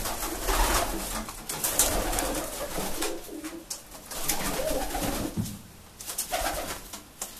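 Taganrog tumbler pigeon cooing in repeated low swells while it turns in courtship display, tail fanned. Short sharp clicks and scuffs fall between the coos.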